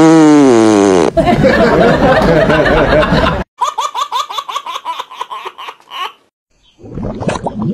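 A cartoon fart sound effect, one long tone sliding downward, followed by a rough noisy stretch. About three and a half seconds in, a baby bursts into hearty laughter in rapid bursts for a few seconds, then stops.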